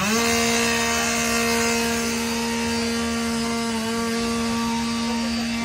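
Chainsaw revved up to full throttle at the start and held there at a steady high pitch, dipping briefly about four seconds in.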